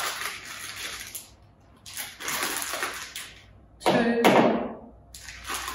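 A packet of cornflour rustling and crinkling as spoonfuls are scooped out and tipped into a mixing bowl, in three spells of rustle. A brief louder sound comes about four seconds in.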